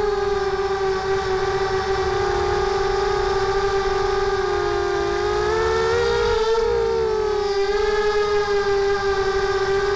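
Mini quadcopter's Sunnysky brushless motors and propellers whining steadily in flight. Their pitch sags and rises with throttle changes around six to seven seconds in, over a low rumble of wind.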